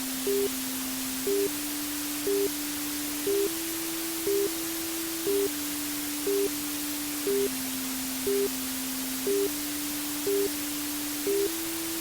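Steady white-noise hiss under a simple electronic tune: a low held tone that steps to a new pitch every two seconds, with a short higher beep about once a second.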